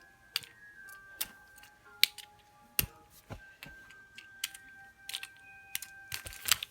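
Fidget cube being clicked and fiddled with: a dozen or so sharp, irregular clicks, a cluster of them near the end, over faint background music.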